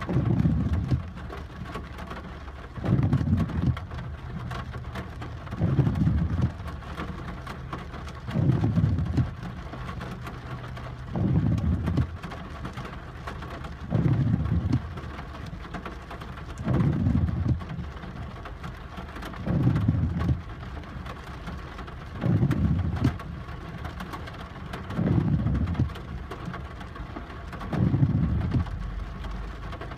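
Windshield wipers of a Peugeot 408 sweeping on an intermittent setting, heard from inside the car: a low swish-thump about every three seconds. Steady heavy rain falls on the car between the sweeps.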